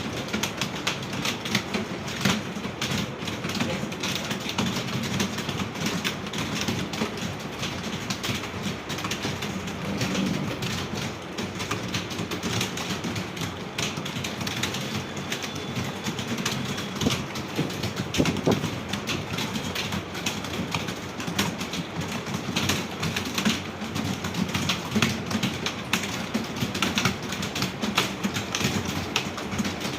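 Many computer keyboards being typed on at once by a room of students taking a typing test: a dense, steady clatter of key clicks.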